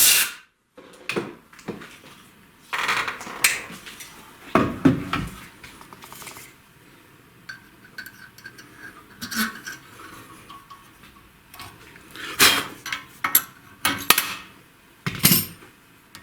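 Irregular metallic clinks and knocks of steel valve-seat cutting tooling being handled and lifted off a cylinder head after the cut, with its magnetic base just released.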